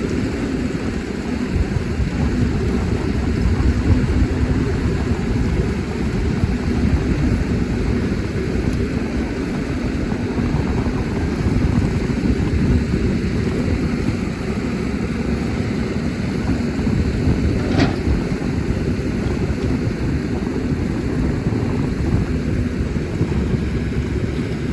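CAT 320D excavator's six-cylinder diesel engine running steadily under working load, a loud low rumble. One short, sharp, higher-pitched sound about three-quarters of the way through.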